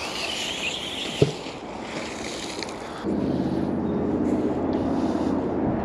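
A steady engine drone, a low hum that comes in suddenly about three seconds in, over a light wind-like background. One sharp knock sounds a little after the first second.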